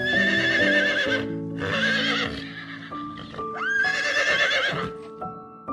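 Horse whinnying three times, each call high and quavering, over soft background music.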